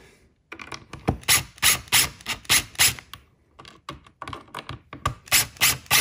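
Cordless screw gun driving a receptacle's mounting screws into a plastic electrical box, clicking in a steady rhythm of about three clicks a second. There are two runs, one per screw, with a short pause between.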